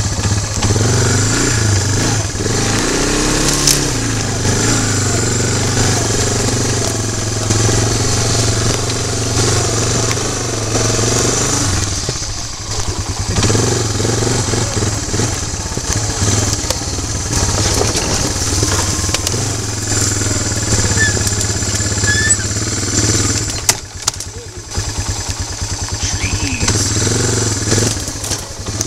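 ATV engine running as the four-wheeler is ridden over rough ground, its pitch rising and falling with the throttle. It eases off briefly about halfway through and again near the end, then picks back up.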